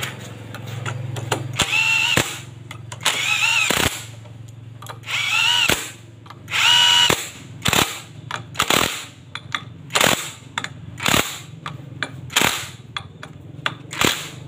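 Cordless drill-driver running down the clutch pressure-plate bolts on a Yamaha Vega ZR's clutch. It gives four short runs of a whine that rises and falls, then a string of quick short bursts as each bolt snugs down.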